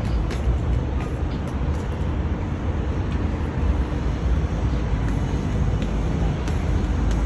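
Steady low rumble of wind buffeting the microphone, over the distant hum of city traffic far below.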